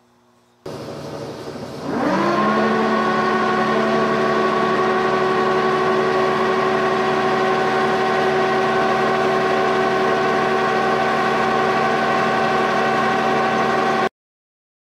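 Milling machine spindle starting up to drive a piloted end mill: a machine hum comes on, then about two seconds in the spindle spins up with a rising whine that settles into a steady hum. It cuts off abruptly near the end.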